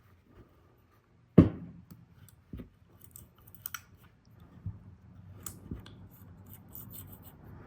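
Small metal parts of a disassembled Cobratec out-the-front automatic knife being handled during oiling: one sharp click about a second and a half in, a second click a second later, then scattered light ticks and rubbing.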